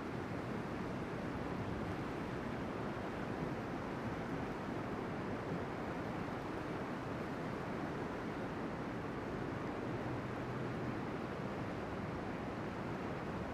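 Steady rush of a fast-flowing river running over shallow rocky riffles, with no breaks.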